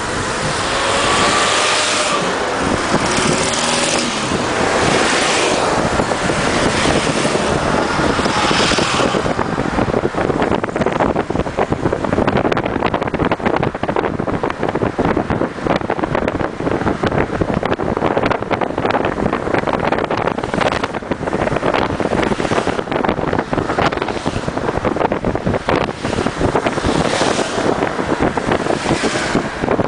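Steady road and wind noise heard from inside a moving car, with wind gusting over the microphone, strongest in the first several seconds.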